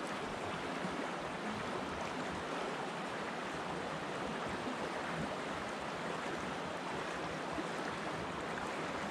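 Steady rushing of a small river flowing over a shallow riffle.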